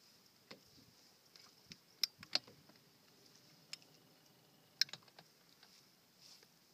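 Quiet background hiss with a few scattered small clicks and taps, the sharpest a little after two seconds and another near five seconds.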